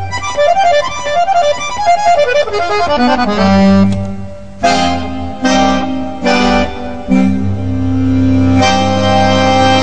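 Piano accordion played solo: a quick run of single treble notes, then full chords over a bass note, struck four times and ending on a long held chord.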